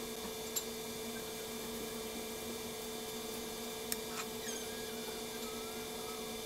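Steady electrical hum with a few faint clicks and small squeaks from handling, as a spoon and plastic-gloved hands scoop mince filling onto a round of dough.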